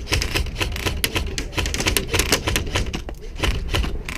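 Airsoft guns firing: a dense, irregular run of sharp clicks and snaps.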